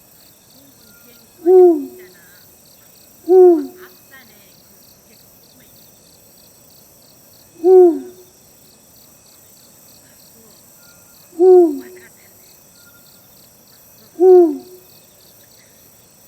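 Eurasian eagle-owl hooting five times, a few seconds apart, each a single deep hoot that drops slightly in pitch. Crickets chirp steadily in the background.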